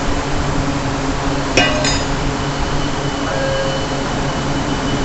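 Steady industrial machinery noise with a low hum in an arc furnace steel shop, broken about a second and a half in by a sharp metallic clank that rings briefly, with a lighter clink just after it.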